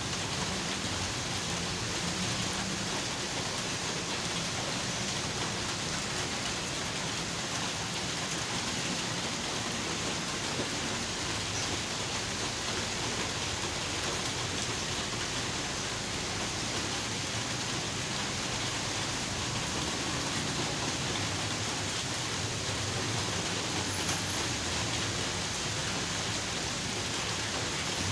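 Steady heavy rain pouring down, an even hiss with no breaks, with a low rumble that swells near the start and again toward the end.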